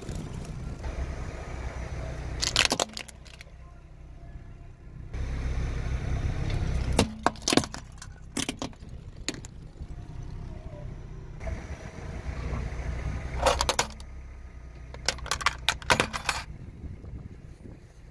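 Car tyres rolling over and crushing small plastic toys on asphalt: several bursts of sharp cracking and snapping, a few seconds in, a cluster around the middle, and more near the end, over the low rumble of the car.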